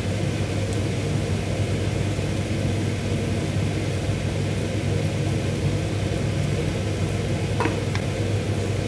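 A steady low hum and whir over a faint sizzle of onions frying in oil in a pan, with two light taps near the end.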